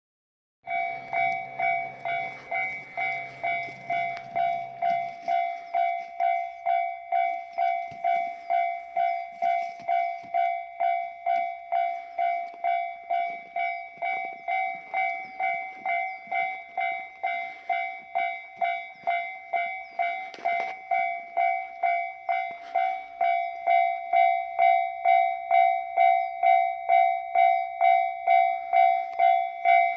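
Japanese railway level crossing warning bell ringing in a steady, even 'kan-kan' rhythm of about two strikes a second, starting suddenly about half a second in. A low hum sits under it for the first few seconds, and the bell grows louder near the end.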